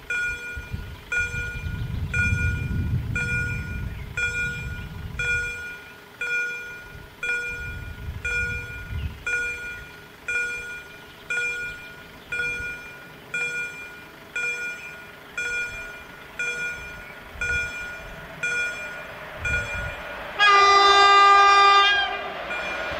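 Regular electronic beeping, about one and a half beeps a second, as an electric passenger train approaches; near the end the locomotive, a PKP Intercity EP07, sounds its horn once for about a second and a half.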